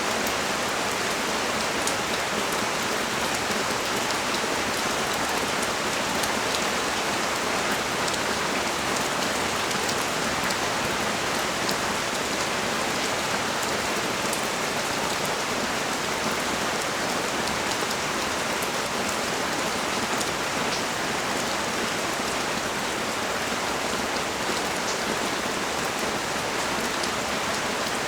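Heavy rain falling steadily, an even hiss of water dotted with the ticks of single drops striking hard surfaces.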